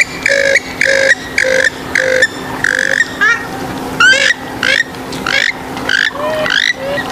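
Swamphen and moorhen calls: a run of short, evenly repeated calls about two a second, then from about two and a half seconds a busier mix of overlapping, rising upswept calls.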